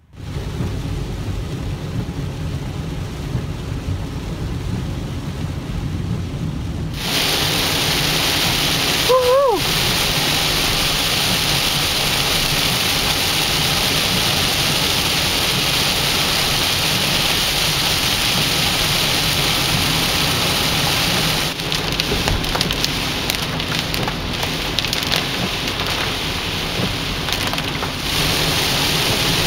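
Heavy rain on a moving car heard from inside the cabin: a steady, loud hiss of rain and wet road. It gets suddenly louder about seven seconds in and shifts again twice later. A brief high chirp sounds about nine seconds in.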